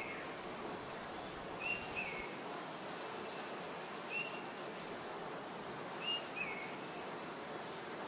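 Small birds chirping, short calls repeating every second or so at a high and a higher pitch, over a steady outdoor background hiss.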